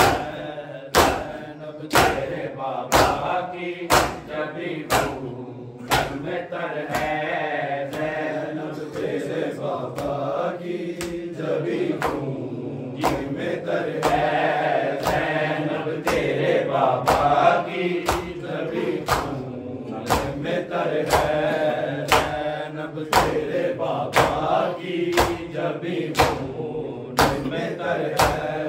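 A group of men chanting a Punjabi noha (Shia lament) in unison, with matam: hands slapping bare chests together in a sharp beat about once a second.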